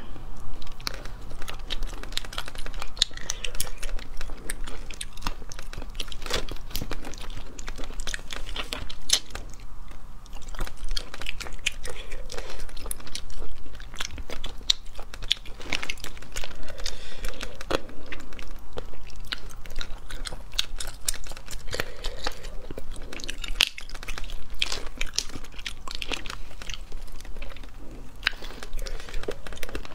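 Close-miked eating of small sea snails picked from their shells by hand: chewing and mouth sounds with many sharp clicks throughout.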